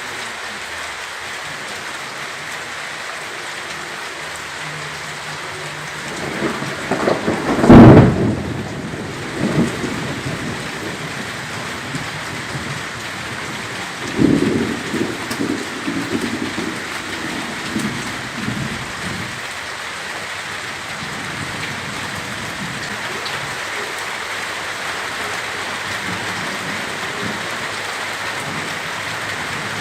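Heavy rain falling steadily, with a loud crack and rumble of thunder about eight seconds in and a second, longer roll of thunder starting about halfway through.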